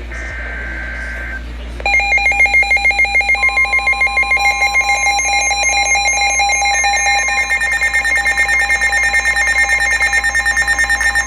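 Emergency Alert System tones on a NOAA Weather Radio severe thunderstorm warning. First a brief high two-pitch warble, the tail of the SAME data header. Then, from about two seconds in, a loud electronic alert beeps about eight times a second, joined a few seconds in by the steady 1050 Hz warning alarm tone.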